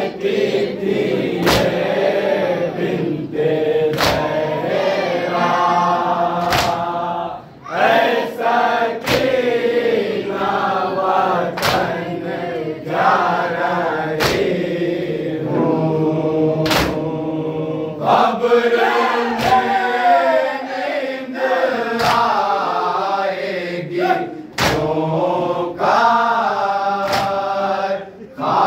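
A group of men chanting an Urdu noha (lament) in chorus. Sharp strikes of hands beating chests in unison (matam) mark the beat, about one every 1.3 seconds.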